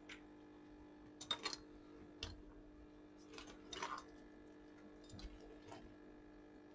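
Faint clicks and light rattles of a laptop display panel and its cable being handled on a workbench, over a steady low electrical hum.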